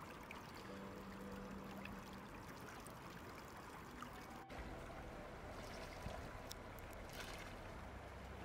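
Faint, steady trickling of a small stream's running water.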